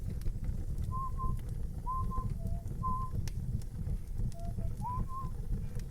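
Busy tavern ambience: a low, muffled murmur of a crowd with scattered clinks, and a person whistling a short tune in brief notes, some sliding up in pitch.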